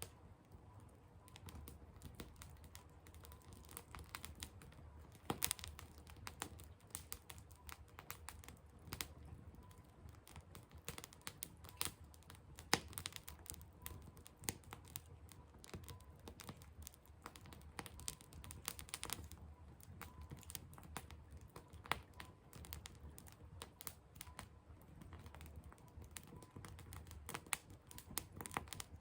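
Firewood burning, crackling and popping irregularly with quiet sharp snaps over a low rumble.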